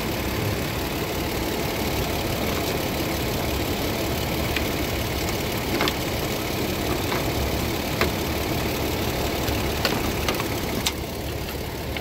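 2012 Toyota Tacoma's engine idling steadily, with a few light clicks over it.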